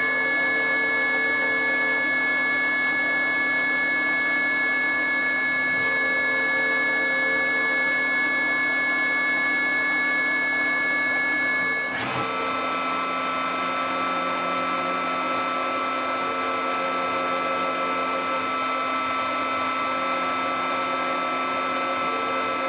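Mazak Integrex multitasking CNC machine milling a metal part with a small end mill: a steady machine whine with several held high tones. About halfway through, the tones shift to a lower set as the machining changes.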